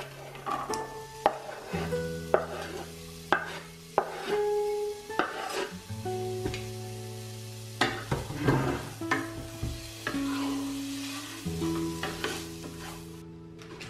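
Diced onion scraped off a wooden cutting board into a hot oiled pot and sautéing with minced garlic: a low sizzle with repeated sharp knocks and scrapes of board and spatula against the pot, then stirring with a spatula near the end.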